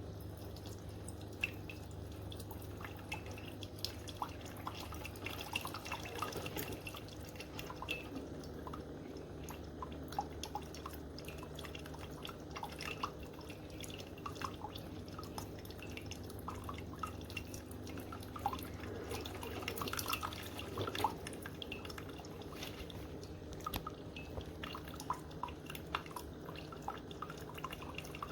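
Cuisinart SS-15P1 coffee maker brewing: a steady low hum under irregular gurgling and dripping as hot water passes through and coffee drips.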